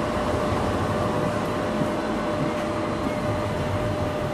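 Articulated electric tram running along street track: a steady rumble of wheels and motors with a constant thin whine over it.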